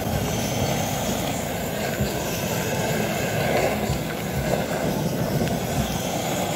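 Handheld butane blowtorch burning with a steady flame noise as it sears food in a foil tray.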